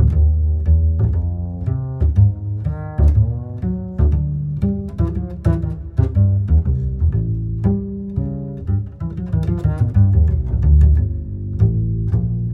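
Background music: a quick run of low plucked notes with melodic notes above.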